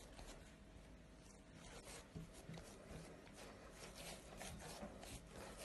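Faint, soft rubbing of hands rolling a log of kneaded feteer dough on a stone countertop: a string of light scuffs.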